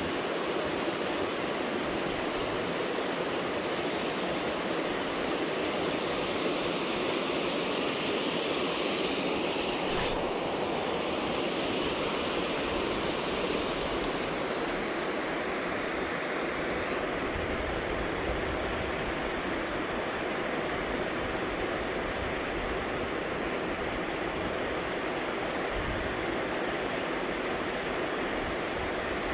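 Steady rush of stream water pouring over a low weir, with one sharp click about ten seconds in.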